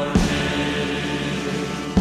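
Background music of a choir singing held chords, with a deep drum hit just after the start and another at the end.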